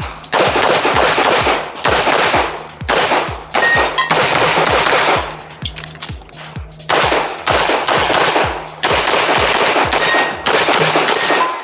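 Rapid strings of pistol fire from a Tanfoglio Stock II handgun, each string lasting about a second and a half with short lulls between them, over background music with a steady beat.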